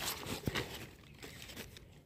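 Faint rustling of crumbly compost and the plastic sack lining as a hand spreads and presses soil in a box, with a few soft ticks in the first second.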